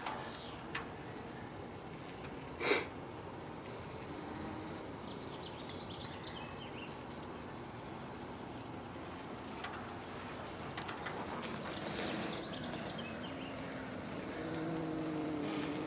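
Honey bees buzzing in a low, wavering hum that grows plainer near the end, with one short, sharp noise about three seconds in.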